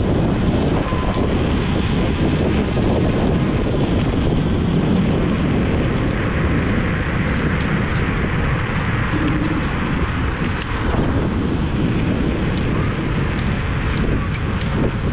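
Steady wind buffeting the microphone, with road and tyre noise from a Kaabo Mantis Pro SE electric scooter riding along a paved road.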